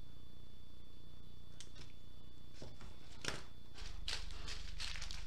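Small plastic bags of diamond-painting drills rustling and crinkling as they are handled: a few light crackles at first, then steady crinkling from a bit past halfway, over a low steady hum.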